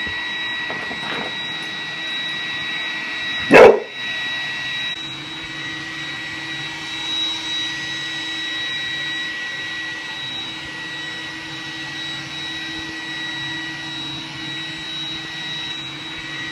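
Roomba robot vacuum running with a steady high whine. About three and a half seconds in, a Boykin Spaniel barks once, loudly.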